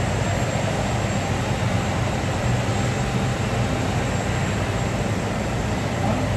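Steady, loud roar of commercial jet airliner engines, with no clear rise or fall.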